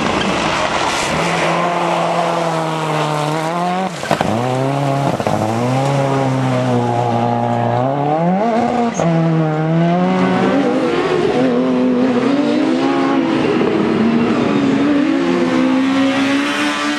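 Rally car engines at full throttle. First an Audi quattro's turbocharged inline five-cylinder pulls up through the revs and drops sharply at each gear change. In the second half a different competition engine runs at steadier, wavering revs.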